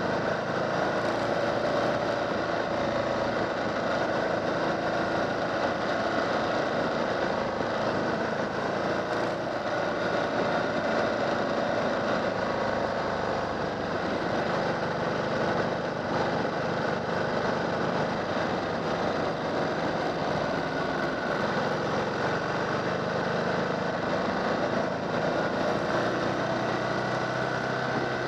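Motorcycle engine running steadily at road speed, its note holding fairly even, over a steady rush of wind and road noise.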